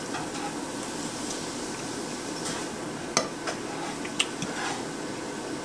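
Metal eating utensil clinking and scraping on a plate, with two sharp clinks about three and four seconds in and a few lighter taps, over a steady background hiss.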